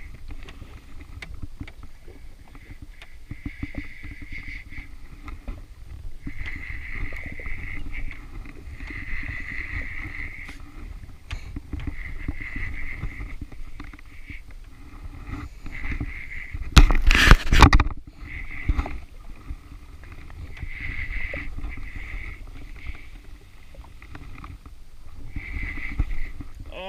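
Overhead fishing reel cranked in spurts while a hooked fish is played, its gears whirring, over a steady low rumble of water and wind around the jet ski. About two-thirds of the way in a loud burst of noise lasts about a second.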